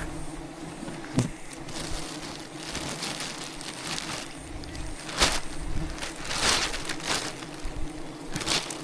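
A swarm of wild bees humming steadily around their hive, with several short rustling, crunching noises over the hum, the loudest about five seconds in.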